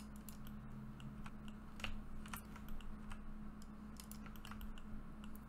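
Computer keyboard keys clicking at irregular intervals, faint, with a steady low hum underneath.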